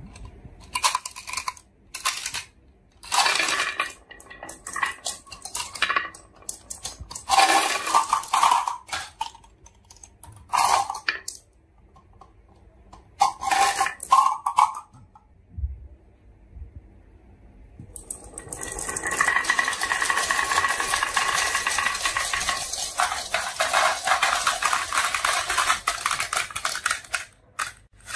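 Black marbles clinking and clattering in short bursts as they are shaken and poured from a plastic jar onto a wooden track, then a long continuous clatter of many marbles rolling together down wooden track.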